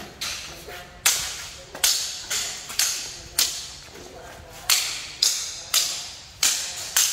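Practice swords (broadswords) clashing blade on blade in rapid sparring: about ten sharp clacks in seven seconds, some in quick pairs, each trailing off in a short echo.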